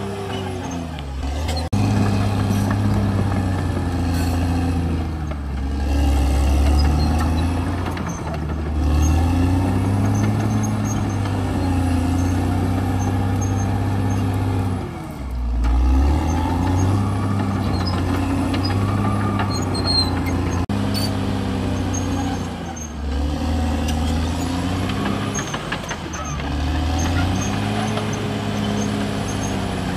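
Caterpillar D6R XL bulldozer's diesel engine working hard as the dozer pushes earth, its pitch rising and falling again and again as the load comes on and off.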